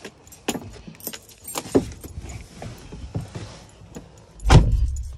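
Keys jingling and knocks of someone climbing into a vehicle, then a heavy thump of the car door shutting about four and a half seconds in.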